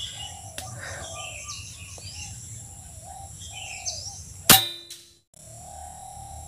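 A PCP air rifle (SE 03 Transformers) fires a single sharp shot about four and a half seconds in, with a short metallic ring, over birds chirping.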